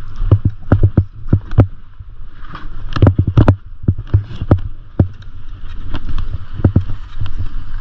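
Skis scraping and chattering over tracked-out, chopped-up snow, with irregular sharp knocks and clatter, over a steady low rumble of wind buffeting the microphone.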